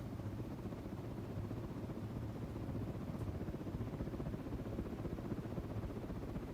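A Universal top-mount spinner ceiling fan running with a steady low hum.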